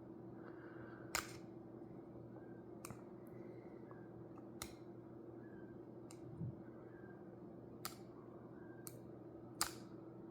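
Scattered sharp metal clicks, about seven over ten seconds, as a small spring is worked off a Briggs & Stratton lawn mower carburetor by hand and tool, with one duller knock about six and a half seconds in. A faint steady hum sits underneath.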